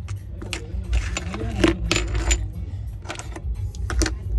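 Light metallic clicks and taps of small repair tools working on a phone, irregular and scattered, over a steady low hum.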